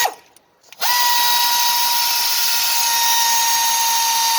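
Handheld power tool running at a steady high speed with a constant whine. It winds down right at the start, spins back up just under a second in, and runs steadily after that.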